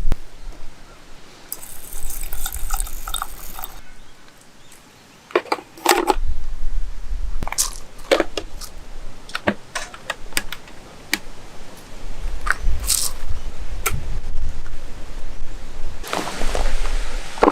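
Campfire cooking sounds: scattered sharp clicks and clinks, with a short hiss about two seconds in and again near the end.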